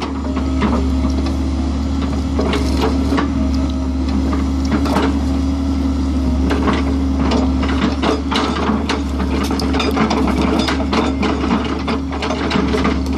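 Excavator with a hydraulic breaker attachment running steadily: a loud, constant engine and hydraulic drone with a steady whine, and scattered irregular knocks rather than the breaker's fast hammering.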